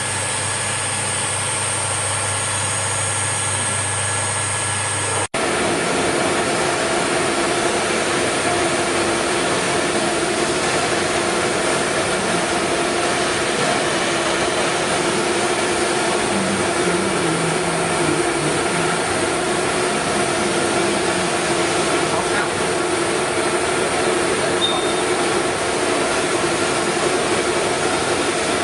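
CNC router running: a steady spindle whine with cutting noise. The sound cuts off abruptly about five seconds in and resumes at once as a similar steady machine noise with a different pitch pattern.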